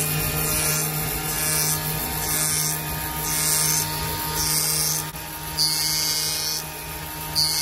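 Jewelry CNC machine's 360-degree diamond-cut head spinning and cutting a flat face of a gold bangle: a steady machine whine with a high hiss that comes back about once a second, the last hisses lasting longer.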